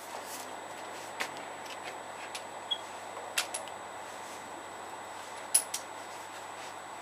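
Light clicks and handling noises from a homemade pistol crossbow being handled between shots, over a steady background hiss; the sharpest click comes about five and a half seconds in.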